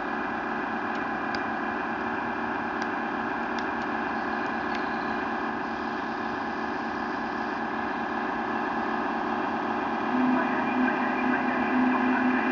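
RC model work boat with grab crane running, a steady mechanical hum with a few light clicks. About ten seconds in, a louder pulsing whine joins in as the crane works.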